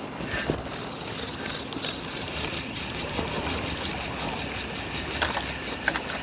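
Spinning reel being cranked at a steady pace, its gears ticking evenly about five times a second, as a hooked hairtail is wound in.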